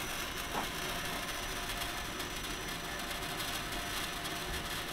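Steady noise of an LPG (propane) dispenser's pump running while a car's gas tank is being filled, with one faint tick about half a second in.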